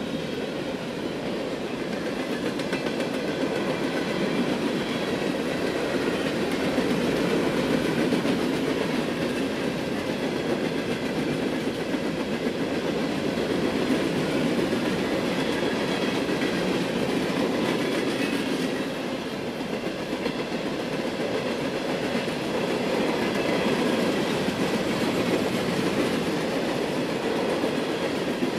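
Empty open-top hopper cars of a freight train rolling past, a steady rumble with the wheels clattering over the rail joints.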